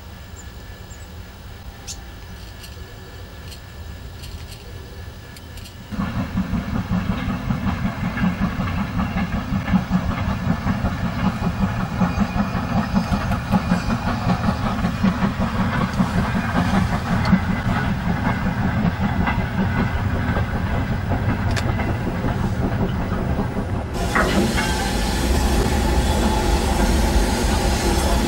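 Steam locomotive working a train: faint at first, then about six seconds in its exhaust beats come in loud and fast and run on steadily. Near the end the sound changes to a broad hiss over a low rumble as a tank engine moves slowly.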